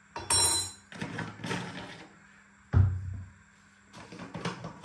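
Background music, with a sharp low thump about three seconds in and a loud burst just after the start.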